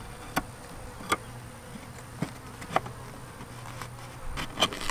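Honeybees buzzing steadily around a top bar hive, with a series of sharp wooden clicks and knocks as the cedar top bars and a spacer are set and pressed into place, two of them close together near the end.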